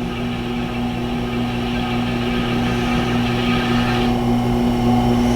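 Tormek T-8 sharpener running with a steady electric motor hum while a multi-tool blade is honed on its leather honing wheel; the hiss of the blade on the wheel drops away about four seconds in.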